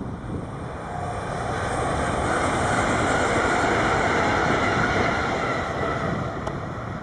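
A train passing by, building from about a second in to its loudest in the middle, then easing off near the end.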